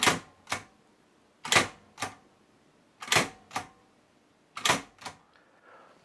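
Silver Reed Silverette portable typewriter's tabulator in use: four times the carriage jumps along to a preset tab stop, each jump a pair of sharp mechanical clacks about half a second apart.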